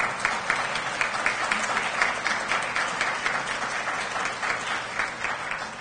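Audience applauding, a room full of people clapping steadily, tapering off near the end.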